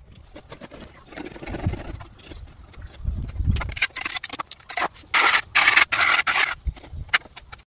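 Hand tools scraping and rubbing over cement render in a series of irregular strokes, including a hand float worked across the wall surface. The strokes get louder about four to five seconds in, and the sound stops abruptly near the end.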